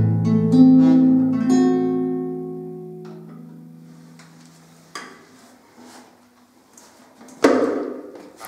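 Classical nylon-string guitar fingerpicked, its last notes and final chord ringing out and fading away over a few seconds. A couple of faint knocks follow, then one loud handling thump about seven and a half seconds in.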